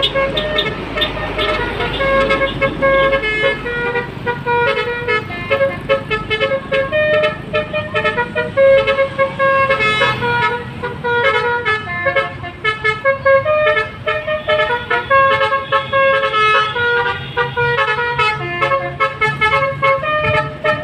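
Basuri V3 telolet horn on a bus, its multi-trumpet air horns playing a quick tune of short notes that step up and down in pitch.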